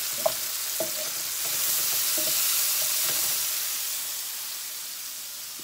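Sliced mushrooms sizzling in a frying pan while a wooden spatula stirs them, knocking and scraping against the pan a few times in the first half. The sizzle swells in the middle and fades toward the end.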